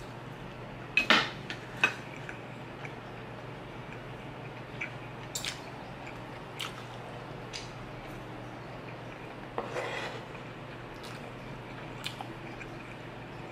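Metal fork and spoon clinking and scraping while scooping steak and rice: scattered sharp clicks, the loudest cluster about a second in and another burst of clinks near ten seconds.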